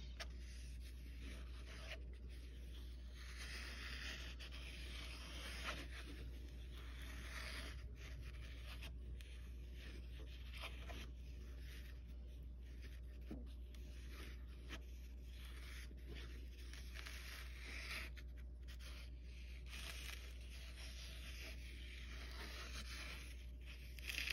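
Metal spoon stirring thick sauce in a foam plate, rubbing and scraping against the plate in uneven swells, with a few light clicks.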